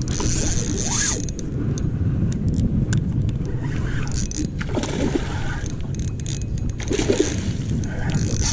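Wind buffeting the microphone over open water, with water sloshing and splashing as a hooked bluefish thrashes at the surface beside a small boat. There are a few short splashes in the second half.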